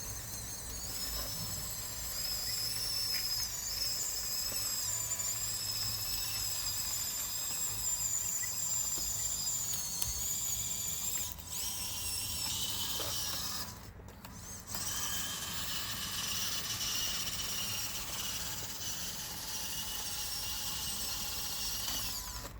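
Electric drive motors and gearboxes of a radio-controlled bulldozer whining at a high pitch, the pitch wavering as it drives. The whine stops briefly about two thirds of the way through, then starts again.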